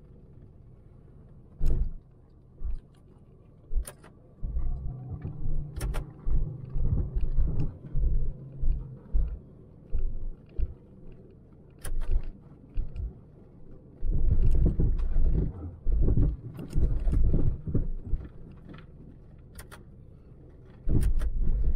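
A 1998 Jeep Grand Cherokee heard from inside the cabin, rolling slowly over a rough, uneven alley. There is a low rumble with irregular bumps and thumps, heaviest about two-thirds of the way through, and sharp clicks and rattles now and then.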